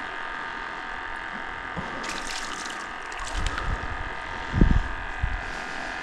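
A steady electrical or mechanical hum with several fixed tones, with some light crackling a couple of seconds in and a few dull low thumps a little after halfway.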